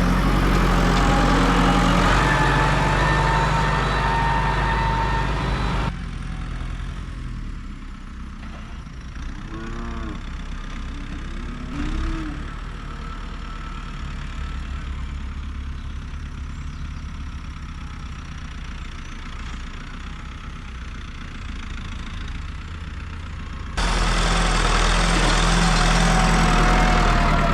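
New Holland tractor engine running steadily. About six seconds in it cuts off abruptly to a quieter stretch where cows moo twice, about ten and twelve seconds in, and the engine sound returns abruptly near the end.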